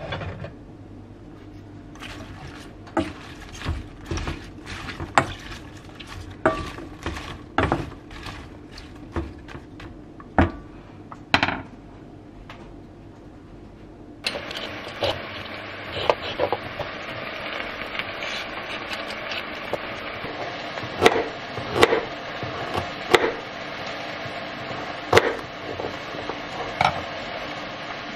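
Kitchen work: scattered knocks and clinks of utensils and dishes, then from about halfway a kitchen tap suddenly running in a steady rush, with more clinks and knocks over it.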